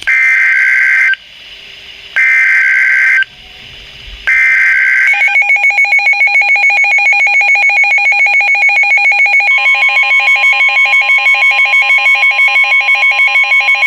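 Emergency Alert System warning tones: three one-second bursts of warbling SAME header data tones. These are followed by a long, rapidly pulsing electronic alert tone, which a steady NOAA Weather Radio 1050 Hz warning tone joins about halfway through.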